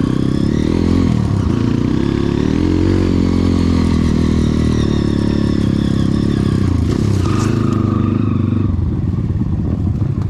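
Enduro dirt bike engine running under load, revving up and down with the throttle as it rides a narrow trail. A brief clatter comes about seven seconds in.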